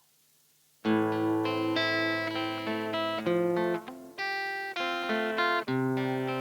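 Guitar playing the Am–F–C–G chord progression, starting about a second in, with chord notes sounding one after another and ringing on.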